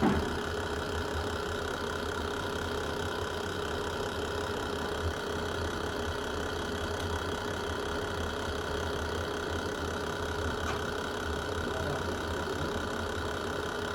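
Wood fire burning in a fireplace: a steady low rumble with a few sharp crackles, one at the very start, one about five seconds in and one nearer eleven seconds.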